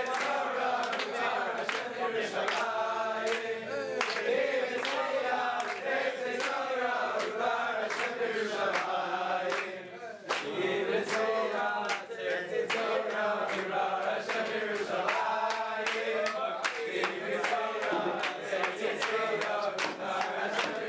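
A group of men singing together in unison while dancing, with a steady sharp beat running under the song. The song dips briefly about halfway through, then picks up again.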